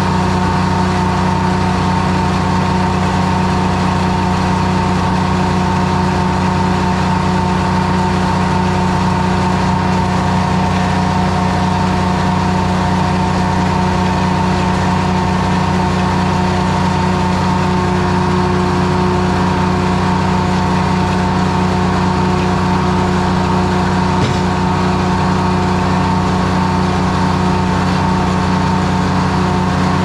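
1953 Detroit Diesel 3-71 power unit, a three-cylinder two-stroke diesel, running at a steady speed.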